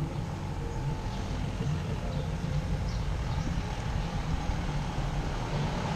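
Street ambience with a steady low rumble.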